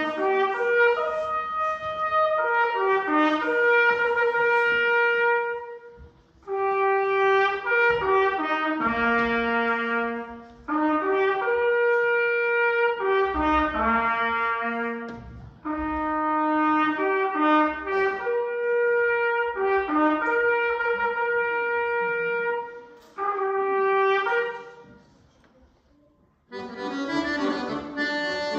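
Solo trumpet playing a melody in phrases a few seconds long, with short breaks between them. Near the end an accordion comes in.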